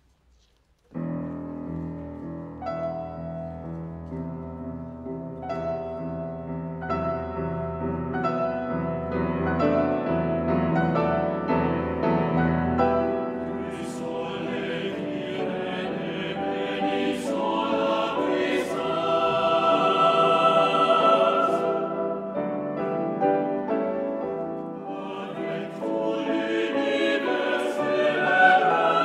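Grand piano begins suddenly about a second in with slow, held chords over deep bass notes. About 14 seconds in, a mixed chamber choir enters over the piano, singing in full chords.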